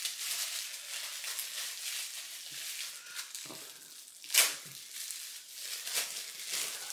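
Aftershave splash bottle and its packaging being handled: soft rustling throughout, with one sharp click about four and a half seconds in.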